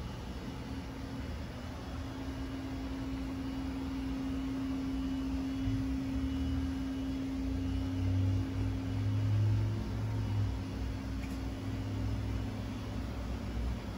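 Frosted crystal singing bowl ringing with one steady, sustained tone, over a low rumble that swells about eight to ten seconds in.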